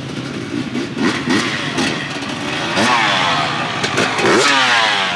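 GasGas off-road motorcycle engine revved in quick blips, its pitch sweeping sharply up and down a few times, mostly in the second half.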